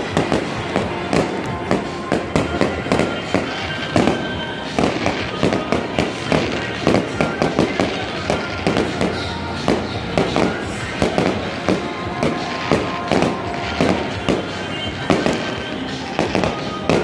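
Aerial fireworks show: shells bursting in quick, irregular succession, several sharp bangs a second without a break.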